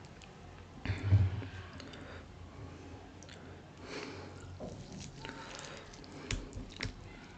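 Fingers squishing and mixing dhido into thick stinging-nettle (sisnu) soup in a metal plate, with wet squelches and chewing. A louder low thump comes about a second in, and a few sharp clicks near the end.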